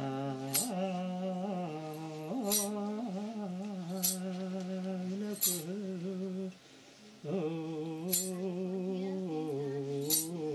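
Liturgical chant in an Ethiopian Orthodox church: a low voice holding long, slowly wavering notes, breaking off briefly about two-thirds of the way through. A short, bright metallic jingle comes every second or two.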